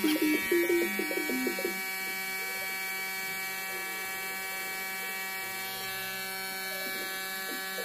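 A steady electric buzz with many overtones. A short tune of stepping notes plays over it in the first two seconds.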